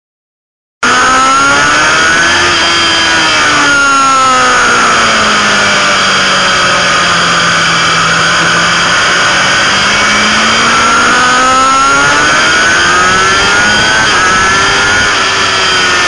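Sports motorcycle's inline-four engine heard on board at speed, cutting in suddenly about a second in. The revs fall slowly for several seconds, then climb again, with a short dip near the end.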